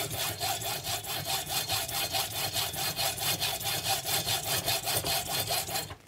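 Hand hacksaw cutting through the threaded metal rods of speaker screw-post terminals, in steady back-and-forth strokes about three times a second. The sawing stops abruptly at the very end.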